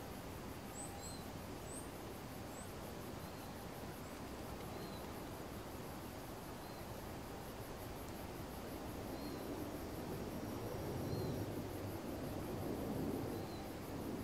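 Outdoor ambience of insects trilling and birds chirping, with a few quick high chirps in the first few seconds and a short call that repeats every second or two. A low rumble builds through the second half: the distant Embraer 170 jet approaching to land.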